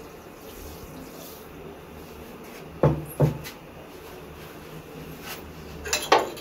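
Kitchen utensils knocking: two sharp knocks in quick succession about three seconds in, then two more just before the end, over a faint steady background.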